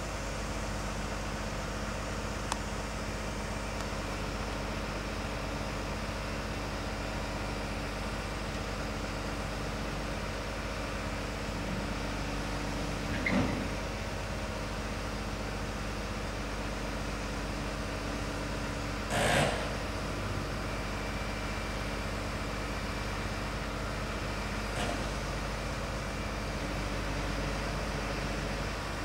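Engine of a stationary crane truck running steadily with an even hum. Two short, louder noises break in, about 13 and 19 seconds in, the second the louder.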